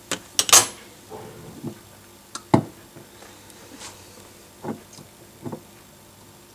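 Kitchenware being handled: a series of separate knocks and clicks, the sharpest just after the start and about two and a half seconds in.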